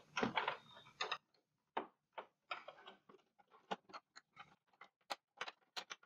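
Plastic case of an LCD TV being prised apart at the edge: a scraping rustle in the first second, then a run of irregular sharp clicks as the snap clips come loose.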